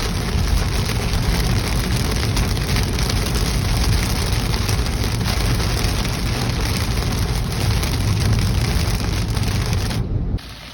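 Heavy rain falling steadily, with a low rumble underneath. It cuts off abruptly near the end.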